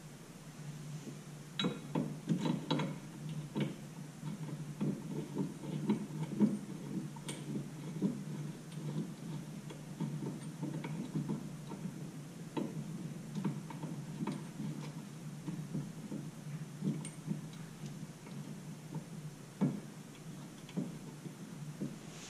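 Hand ratchet clicking in short, irregular bursts with light metal clinks as a caliper-bracket bolt is run into a wheel-hub upright. A steady low hum sits underneath.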